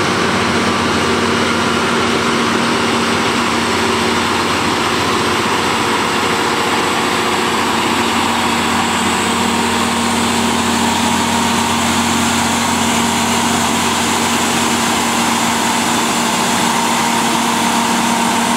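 Engine of a Mount Washington Cog Railway biodiesel locomotive (M7) running steadily as it moves a passenger coach, a constant mechanical drone with a steady low hum.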